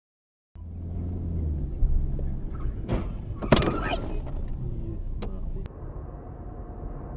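Car driving, its engine and road rumble heard from inside the cabin through a dash cam, starting after a brief silence. A loud sudden noise comes about three and a half seconds in, with a few shorter knocks around it.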